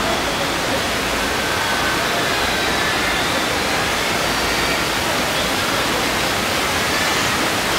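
Steady, even rushing noise with no distinct events, at a constant loud level.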